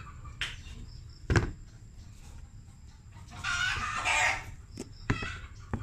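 A chicken calling in the background, one call about a second long, starting about three and a half seconds in. A sharp knock a little over a second in is the loudest sound, with a few small clicks near the end.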